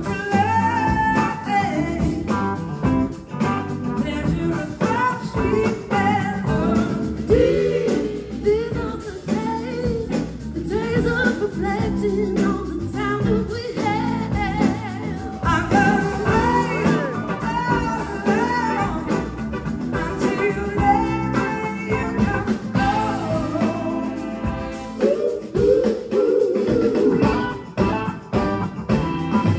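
Live blues-rock band playing a song: electric guitars, drums and a lead vocal.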